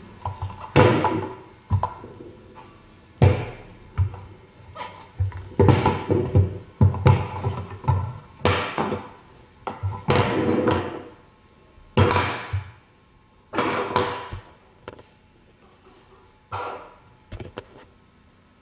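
Plastic meat grinder parts being handled and set down on a wooden table: about a dozen irregular thunks and knocks.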